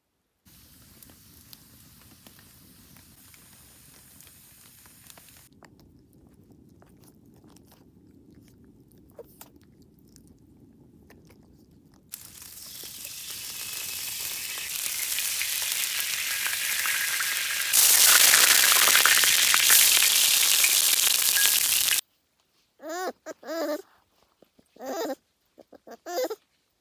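Oil poured into a hot wide pan on a wood-fired stove, hissing and sizzling, growing louder and then cutting off suddenly. Then a puppy whining in several short, high cries that bend in pitch.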